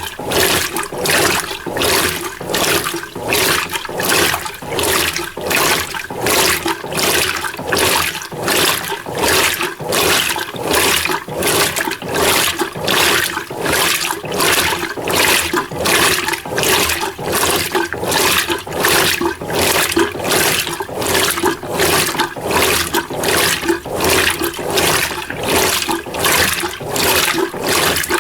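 Mueller Energy 8 kg top-load washing machine agitating a small load of clothes in low-level water: rhythmic water sloshing, about one and a half surges a second as the agitator swings back and forth.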